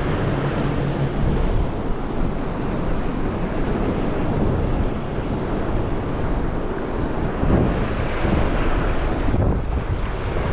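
Wind rushing across the microphone over ocean swell washing against the rocks. The sound is a steady, dense noise.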